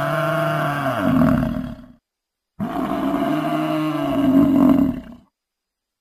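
A large bovine bellowing twice: two long, low calls that rise and fall in pitch. The first ends about two seconds in, and the second follows after a half-second gap.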